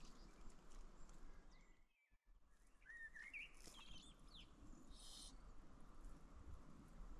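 Near silence: faint outdoor ambience that cuts out briefly about two seconds in, followed by a few faint, short chirping bird calls.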